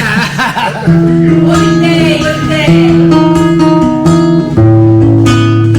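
Guitar playing held chords, coming in about a second in, with the bass note changing every second or so as the chords change.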